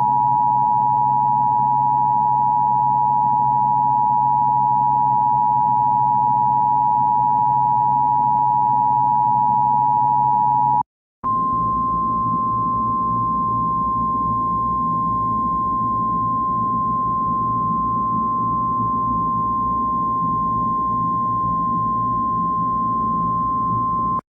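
Emergency Alert System attention signal, a steady dual-tone alarm of two sine tones (853 and 960 Hz) sounding together for about eleven seconds. It cuts off briefly and gives way to the single steady 1050 Hz National Weather Service warning tone, both over a low hum and hiss.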